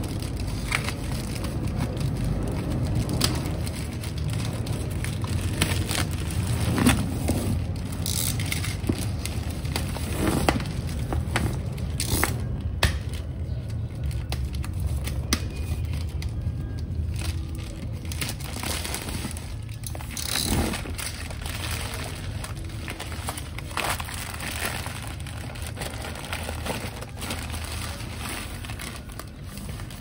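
Plastic wrapping and a shipping bag crinkling and tearing as a taped parcel is slit open with a box cutter and peeled apart, with scattered crackles and rustles, over background music.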